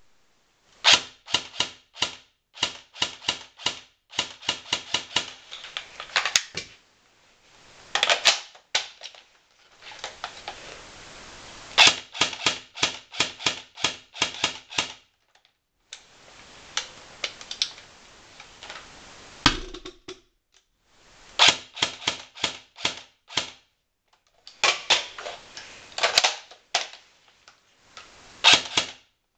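G&P M4A1 airsoft electric gun firing in strings of shots, each a sharp crack over a faint whir, cycling slowly at about three to four shots a second because its battery is low. The strings are broken by short pauses, with one heavier thump about two-thirds of the way through.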